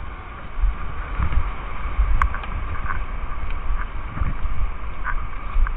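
Whitewater rushing, with wind buffeting the microphone in an uneven low rumble and a few short splashes scattered through it.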